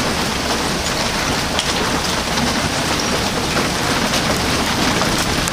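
Small hail falling with heavy rain: a steady, dense hiss dotted with many tiny ticks of hailstones striking the ground.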